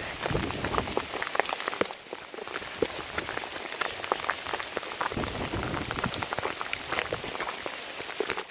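Small pea-sized hail pelting down in a dense, rapid patter of ticks. A brief low rumble comes just after the start and again about halfway through.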